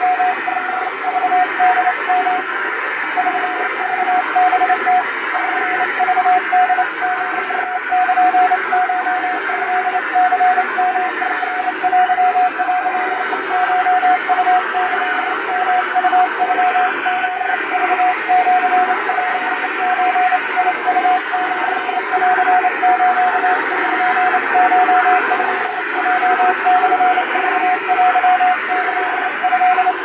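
Fast Japanese wabun Morse code sent with an electronic keyer: a single mid-pitched tone keyed on and off in dots and dashes, spelling out a telegram in kana, with a steady hiss behind it.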